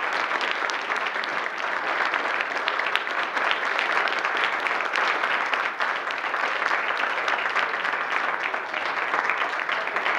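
A congregation applauding: many hands clapping steadily.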